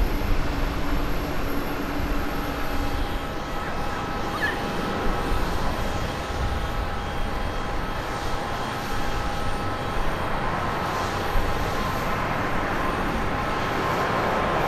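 Jet airliner engines running on the runway: a steady roar with steady engine whine tones. From about three seconds in, a Boeing 777-300ER's GE90 engines run at takeoff thrust on its takeoff roll.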